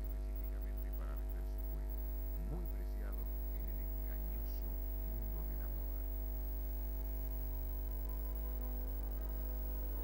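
Steady electrical mains hum with its overtones, with faint plucked-string music over it in the first half.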